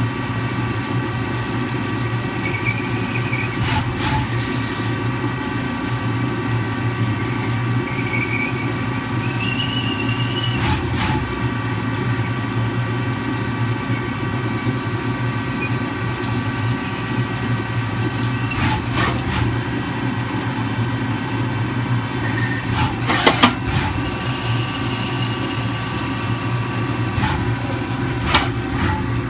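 CNC lathe drilling a titanium part under flood coolant: a steady machine hum and whine with the coolant splashing over the work, a few brief faint squeaks from the cut, and sharp clicks now and then.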